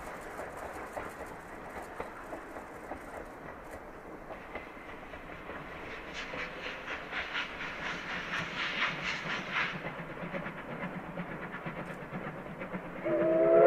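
C10 steam tank locomotive hauling its coaches, its exhaust chuffing in a steady beat over the rattle of the train, the beats strongest past the middle. Near the end its steam whistle blows loud, the loudest sound.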